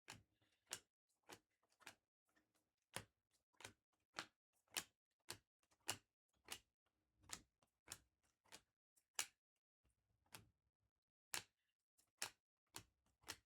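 Topps Chrome trading cards being handled and flipped one by one, each card giving a short crisp snap. The snaps come about one or two a second at uneven spacing, with a short pause a little after two-thirds of the way through.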